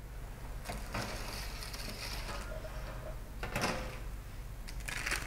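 Kitchen handling sounds: a few light knocks and rustles, the clearest about three and a half seconds in and near the end, over a steady low hum.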